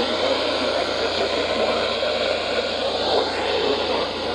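Steady radio static hiss from a Midland GXT67 Pro two-way radio receiving a weather radio channel, with a low steady hum beneath.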